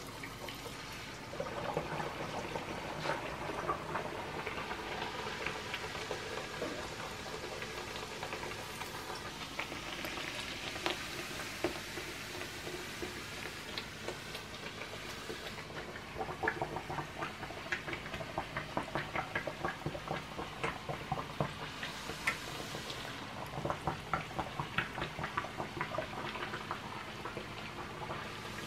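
A gordita of chile-red corn masa dough frying in a small pot of hot oil: steady sizzling full of small crackles and pops, which come thicker from about halfway.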